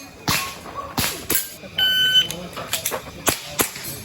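Electronic shot timer beeps once for about half a second, about two seconds in, with sharp clicks around it. Quick airsoft pistol shots follow the beep.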